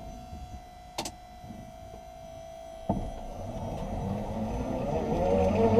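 Electric drive unit and propshaft of a converted BMW E46: a steady whine fading as the shaft comes to a stop, a sharp clunk about a second in and another near three seconds, then motor whine and driveline noise building again as the shaft spins up, the pitch wavering near the end. The drive is still jerky, with an inverter that needs tuning.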